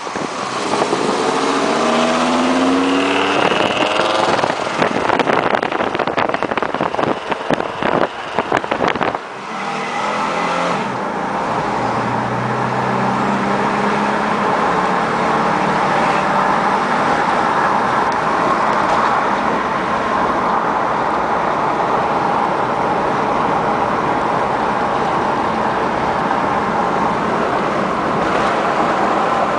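Fiat Marea 2.0 20V five-cylinder engine with a sport air filter being revved repeatedly with a deep note, the pitch rising and falling, for about the first nine seconds, then running steadily at a lower, even speed.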